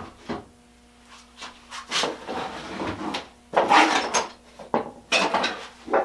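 Irregular scraping and rubbing strokes with a few short knocks, the sound of hand work on metal parts at a workbench, over a faint steady hum.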